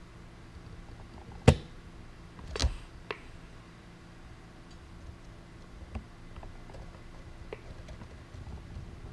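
Sharp clicks and taps from laparoscopic instruments handling a suture in a box trainer, over a faint steady hum. The loudest click comes about a second and a half in, another about a second later, with a few softer ones after.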